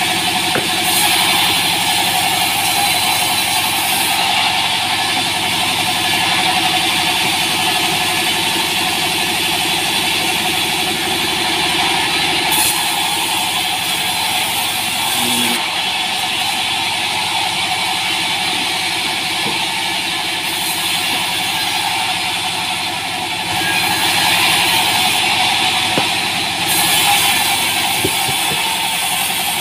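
Vertical band sawmill running steadily while small green logs are fed through the blade. A high hiss of the cut swells and drops with each pass over the running drive.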